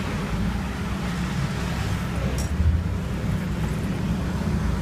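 Steady low engine rumble and traffic noise heard from inside a bus creeping through stop-and-go traffic. A brief sharp click and a thump come about two and a half seconds in.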